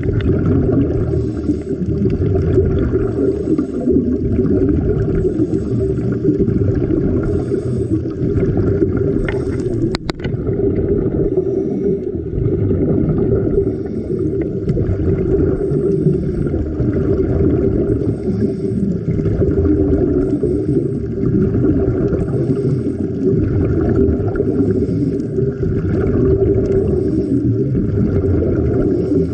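Muffled underwater sound through a camera's waterproof housing: a steady low rumble of water, with one sharp tap about ten seconds in.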